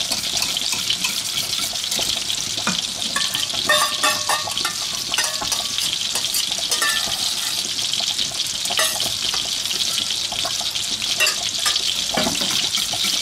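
Meatballs sizzling steadily as they fry in a pan, with a wire whisk scraping and clicking against a steel saucepan as a sauce is stirred.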